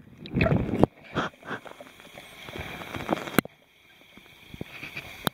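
Water sloshing and knocking against a waterproof camera as it is handled in the water, loudest in the first second, then quieter scattered bumps and a single sharp click a little past the middle.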